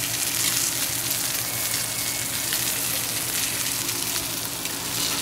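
Ribeye steak searing in beef tallow in a very hot, smoking pan: a steady, even sizzle.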